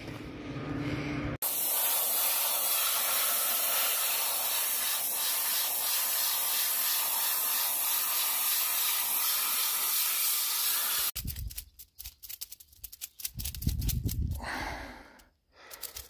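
Compressed-air blow gun hissing steadily as it blows dust out of an air filter element; the hiss cuts in about a second in and stops suddenly after about ten seconds. A few irregular knocks and rattles follow near the end.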